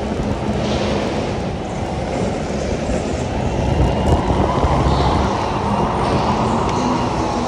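Electric go-kart driven at speed on a smooth indoor track, heard from the driver's seat: a steady rumble of chassis and tyres, briefly louder about four seconds in.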